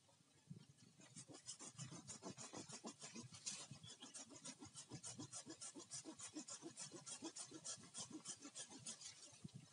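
Hand saw cutting bamboo: quick, even back-and-forth rasping strokes, about three to four a second, starting about a second in and stopping just before the end.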